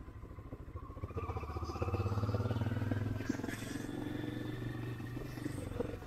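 A vehicle engine running, rising in pitch and getting louder from about a second in as it speeds up, then holding a steady note.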